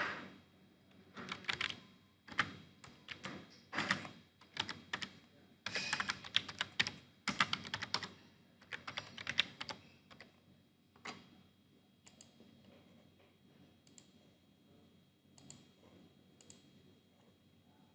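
Typing on a computer keyboard: quick runs of keystrokes for most of the first ten seconds, thinning to occasional single key presses after that.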